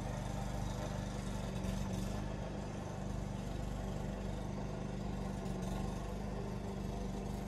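Steady motor hum at a constant low pitch.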